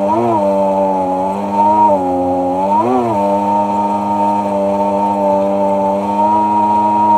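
Sea-Doo personal watercraft engine running at a steady pitch, with two brief rises in revs, just after the start and about three seconds in.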